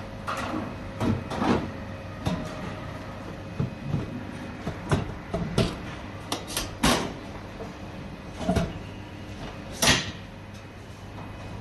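Irregular clicks and knocks of parts being handled and fitted during a belt replacement, with one louder knock near the end, over a low steady hum.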